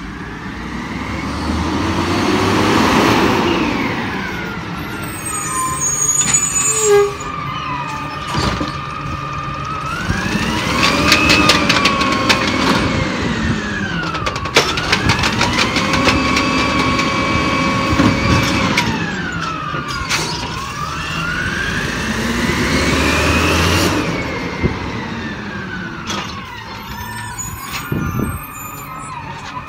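Peterbilt 320 garbage truck with an Amrep automated side-loader arm working its hydraulics: the engine and pump whine rise, hold and fall about four times as the arm cycles, with a few sharp knocks from the carts being gripped and dumped.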